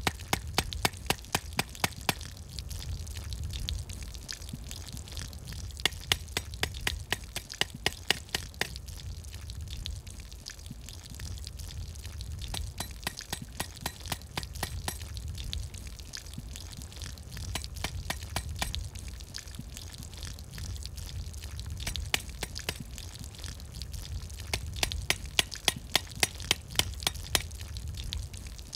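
Hand-pump water filter being worked in runs of quick strokes, about four clicks a second, with water trickling and spurting. A low steady rumble runs underneath.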